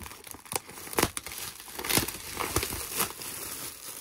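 Plastic bubble wrap crinkling as it is pulled apart by hand and cut open with scissors, in irregular sharp crackles.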